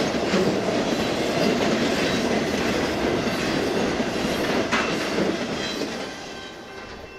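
Wheels of an intermodal freight train's trailer-carrying flatcars rolling and clattering over the rails through a grade crossing, with one sharp clank near five seconds in. The sound fades quickly as the last car passes, about six seconds in.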